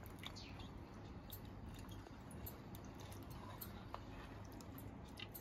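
Faint squelching and small clicks of a hand-turned chakli press squeezing hot cornflour batter out through its mesh, over a low steady hum.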